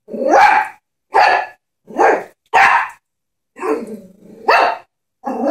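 A Chihuahua barking at a stuffed toy horse that scares it: about six short, sharp barks in a row, roughly one every half second to second.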